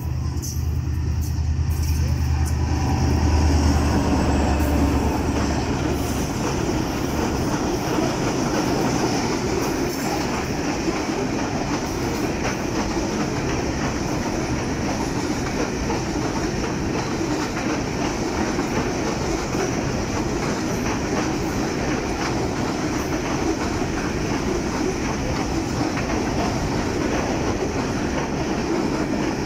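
Diesel locomotive hauling a freight train passes at speed, its engine drone loudest a few seconds in and fading by about six seconds. Then comes the steady noise of a long line of covered goods wagons, their wheels rolling and clattering on the rails.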